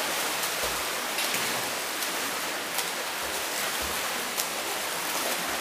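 Steady wash of splashing water in an indoor swimming pool during water polo play, with a few faint sharper splashes.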